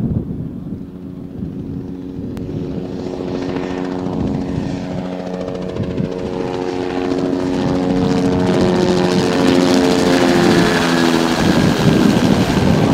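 A light two-bladed helicopter approaches and passes overhead. The rotor chop and engine tones grow steadily louder, then drop in pitch about eleven seconds in as it goes over.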